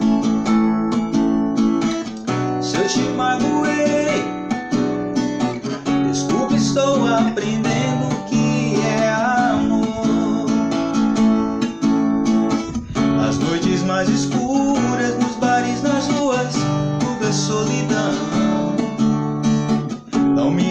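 Acoustic guitar strummed in a steady rhythm through a chord progression, with a voice singing the melody over it.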